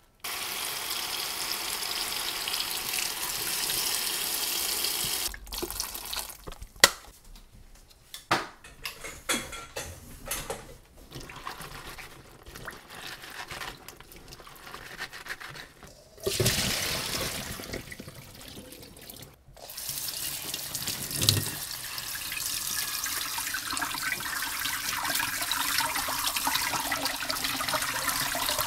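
Kitchen tap running into a stainless steel sink while gloved hands wash vegetables in a metal colander. For about ten seconds in the middle the stream stops and there is only wet handling, with a few sharp knocks against the bowl. Then the tap runs again.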